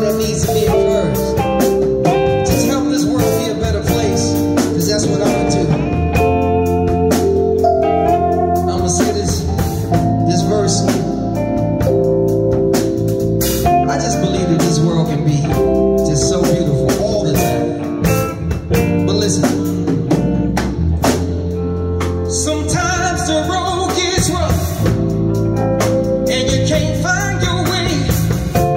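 Live gospel band playing with singing, guitar and drums over a steady beat.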